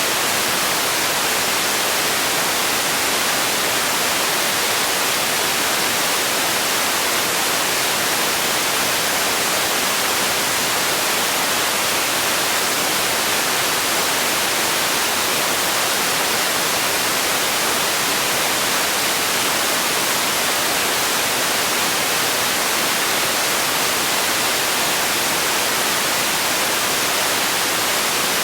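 Steady electronic noise: an even, unchanging hiss, heaviest in the high frequencies and thin in the bass.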